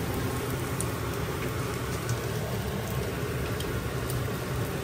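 Food frying in hot oil in a pan on a gas stove: a steady sizzling hiss with a few faint scattered pops.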